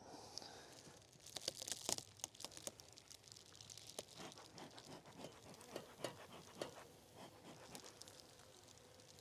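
A run of dry crackles, scrapes and clicks from hands and tools working at an open beehive, thickest about two seconds in and then thinning to scattered clicks.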